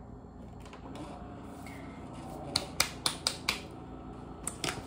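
Keurig single-serve coffee maker being loaded with a pod and started: a run of sharp plastic clicks and snaps about halfway through and again near the end, over a low steady hum.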